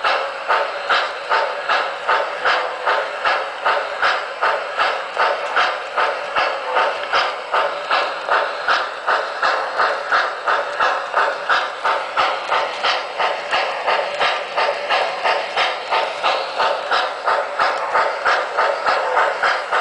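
Electronic steam-locomotive chuffing from the onboard sound system of an MTH O-gauge Santa Fe 4-8-2 L-3 Mohawk model, a steady even rhythm of about two chuffs a second.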